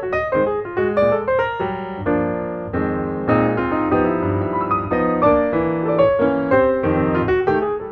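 Background piano music: quick melodic runs over chords, with several held chords in the middle.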